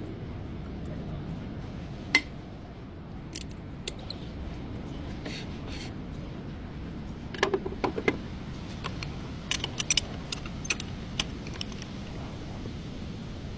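Metal tools and brake parts clinking and tapping as they are handled, over a steady low background hum: one sharp click about two seconds in, then a cluster of clinks past the middle.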